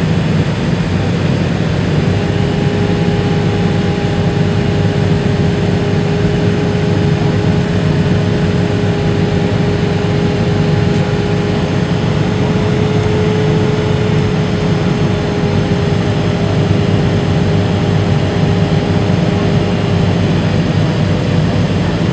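Steady roar inside the cabin of a McDonnell Douglas MD-83 airliner on approach: its rear-mounted Pratt & Whitney JT8D turbofans and the rush of air over the airframe. A steady droning tone comes in about two seconds in and fades near the end.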